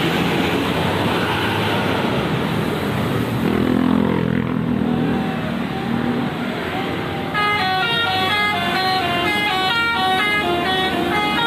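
Bus engine and terminal noise, then from about seven seconds in a Basuri V3 multi-tone 'telolet' bus horn plays a quick melody of stepping notes.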